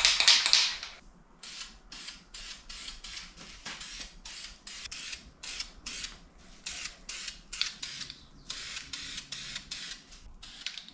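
Aerosol spray can of primer hissing as it sprays light coats onto alloy wheels. A longer spray comes at the start, then many short bursts at about three a second, with another longer spray toward the end.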